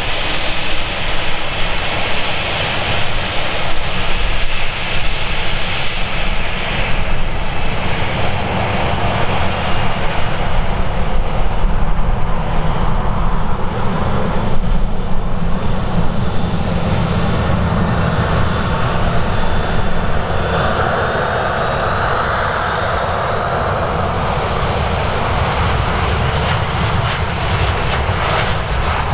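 Boeing 787-9's Rolls-Royce Trent 1000 turbofans at takeoff power as the airliner rolls down a wet runway and lifts off: a steady jet noise with thin high fan whines that rise slightly in the second half. Gusty wind buffets the microphone underneath.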